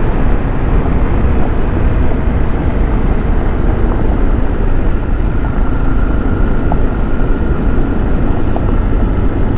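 Dual-sport motorcycle running at a steady cruising speed on a gravel road, its engine note blended with steady wind and tyre noise.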